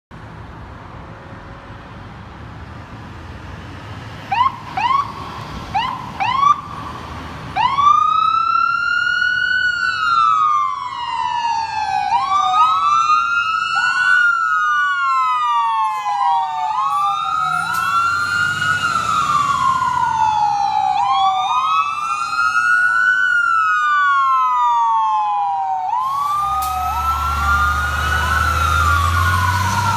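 Fire truck sirens: a few short rising yelps, then two sirens wailing together out of step, each sweeping slowly up and down. Near the end the heavy engine of a passing fire ladder truck rumbles loudly under the sirens.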